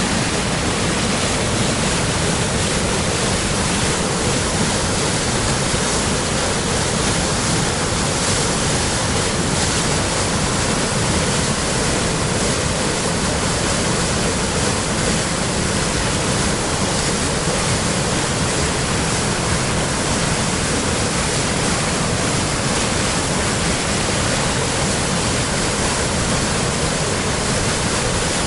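Waterfall on a river in spring flood, a steady, loud rush of falling water.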